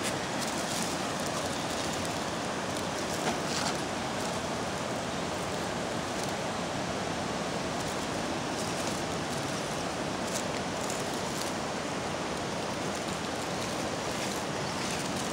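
Steady rush of water running over the river shoals, with a few faint ticks near the start and again later.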